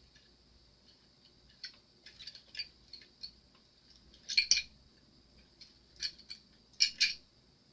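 Scattered small clicks and light taps, in short clusters a second or so apart, of a crafter picking up and handling a makeup-style brush and small pots of mica powder.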